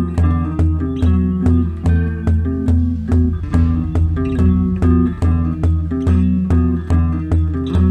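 Instrumental music: plucked guitar over a bass line pulsing about twice a second, with a steady beat.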